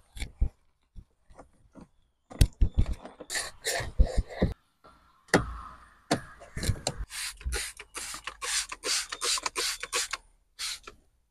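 Cloth rubbing and hand noises on car interior trim, then a trigger spray bottle of interior cleaner squirted again and again, about three short sprays a second, from about seven seconds in.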